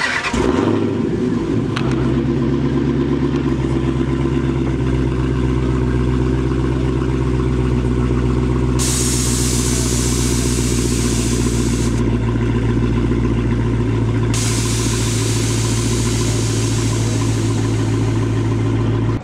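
Dodge Challenger's engine catching with a brief burst and then idling steadily. A loud hiss cuts in and out twice over the idle, several seconds each time.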